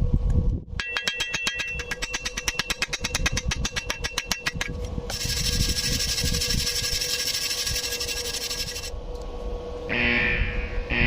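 Stick (MMA) welding on thin square steel tube. A fast run of sharp metallic ticks with a ringing note comes first, then a few seconds of steady hissing crackle from the arc, with short bursts near the end.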